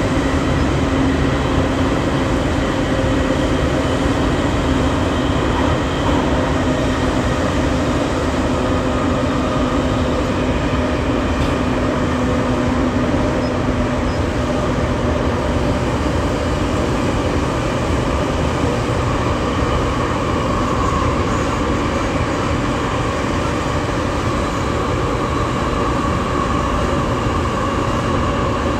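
Musashino Line electric commuter train running between stations, heard inside the car: a steady rumble of wheels on the track. A low hum fades about halfway through, and a higher whine comes up in the second half.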